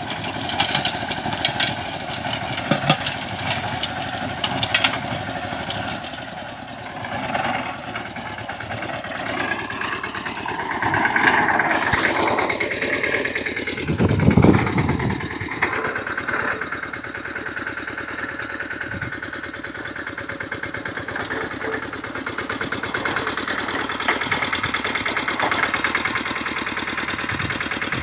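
Mahindra 215 mini tractor's single-cylinder diesel engine running steadily under load while driving a rotavator through dry soil. Its sound drops a little a quarter of the way in and rises again, with a brief loud low rumble about halfway through.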